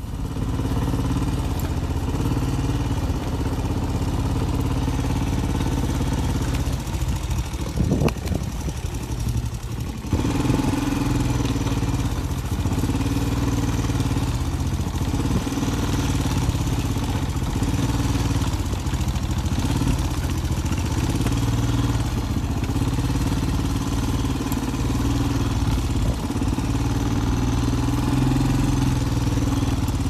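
Quad bike (ATV) engine running steadily at low revs.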